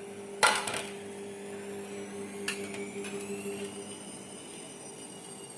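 A short rustling scrape about half a second in, as crushed green chillies are tipped into a clay cooking pot, and a lighter click a couple of seconds later. Underneath runs a faint steady hum that fades out, and a faint high tone rises and then holds.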